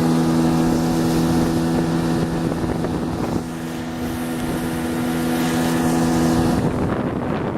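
Hidea 9.9 outboard motor running at a steady speed while being run in, with wind on the microphone and water rushing. The engine's steady tone cuts off abruptly about a second before the end, leaving wind and water.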